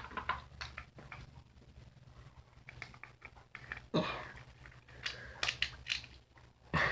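Small plastic clicks and light rattling of Beyblade parts being taken apart and snapped back together as the driver is swapped, with a sharper click about four seconds in and a run of clicks after it.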